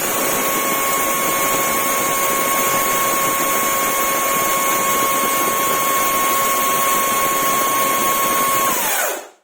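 Parkside Performance PPKSA 40-LI A1 cordless 40V brushless chainsaw running with no load at speed level 2: a steady high whine over a loud rush of noise from the spinning chain, winding down and stopping about nine seconds in. Unloaded it draws about 9 amps, which is within normal for idle.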